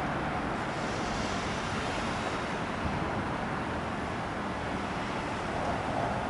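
Steady rushing noise with no distinct events; a high hiss swells briefly a second or two in.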